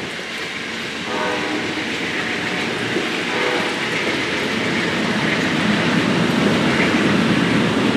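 Amtrak Silver Meteor passenger cars rolling past on the rails, a steady rumble with wheels clacking over the rail joints, growing slowly louder. Faint tones sound briefly about a second in and again around three seconds.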